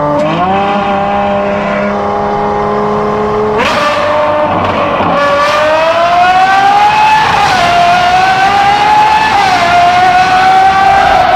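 Ferrari 812 Superfast's naturally aspirated 6.5-litre V12, breathing through a Secret Apple exhaust, running loud under throttle. Its pitch jumps up sharply about three and a half seconds in, then climbs steadily with a couple of brief dips.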